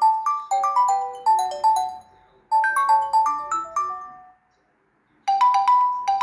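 Nokia G21 stock ringtones. One ringtone plays a quick melody in short runs of falling notes and stops about four seconds in. After a short gap, the next ringtone begins near the end with fast repeated two-note pulses.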